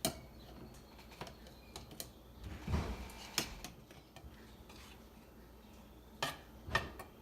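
Kitchen utensils and dishes clinking and tapping: scattered sharp clicks, with a duller knock about three seconds in and two more clicks near the end.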